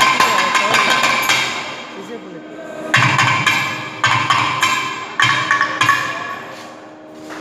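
Thavil drums played in sharp, crisp strokes in clusters, over the reedy held notes of a nadaswaram. The playing thins out briefly about two seconds in, then strong strokes return.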